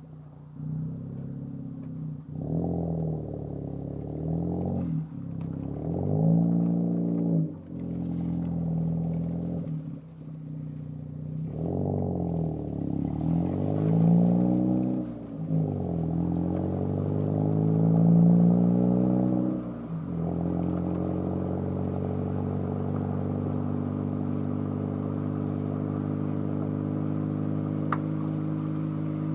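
Ford Focus ST's exhaust through a Cobb aftermarket exhaust, picked up close behind the tailpipe. The engine revs up and falls back several times, then runs at a steady note for the last nine seconds or so.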